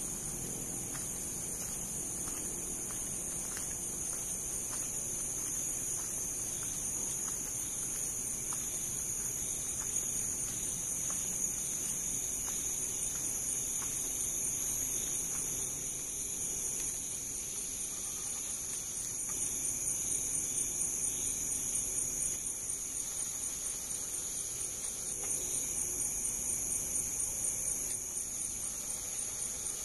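Crickets chirring at night in a steady, high-pitched chorus with a fast, even pulse.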